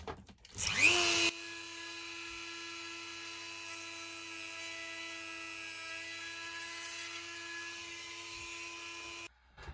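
A Dremel rotary tool spins up with a rising whine, then runs at a steady speed as its small bit drills a pilot hole into a resin-coated pine cone. It cuts off suddenly near the end.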